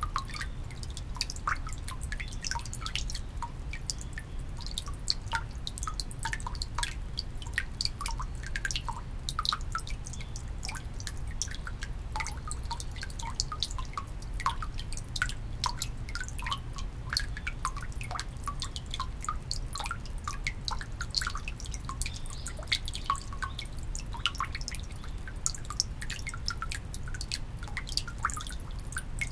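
Water dripping into the basin of a Shinto shrine's temizuya (purification water font): many irregular drops, several a second, over a steady low rumble.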